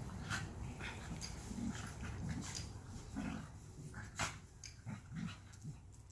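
A dog and a schnoodle puppy play-wrestling, making short, irregular growls and huffs with brief scuffles.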